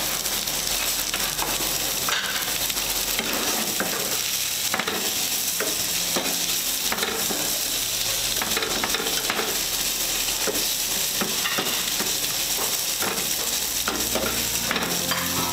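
Chayote and carrot sticks sizzling in olive oil in a nonstick frying pan, with a steady hiss. A slotted spatula stirs and tosses them, scraping and clicking against the pan again and again.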